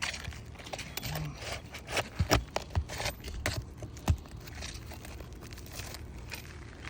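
Scraping and crinkling of work on asphalt roof shingles as roofing nails are pried out. A burst of sharp clicks and knocks falls in the middle, with the loudest knock a little after four seconds in.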